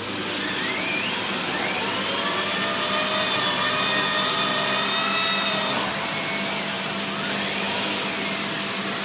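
Dyson CY22 Cinetic Big Ball Animal cylinder vacuum running, very noisy, its floor head pushed over a shag rug and a laminate floor. A steady hum and rush of air, with a whine that rises about two seconds in and falls away about six seconds in.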